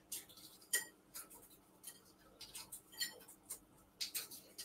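Faint, irregular small clicks and crackles of eggshell being peeled off a hard-boiled egg by gloved fingers.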